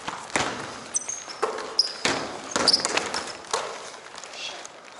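A basketball bouncing several times, unevenly spaced, on a hardwood gym floor, with a few short sneaker squeaks.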